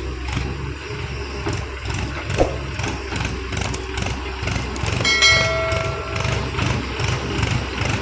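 Heavy diesel engine running steadily with an even low beat. Just past the middle, a clear pitched tone sounds for about a second and a half.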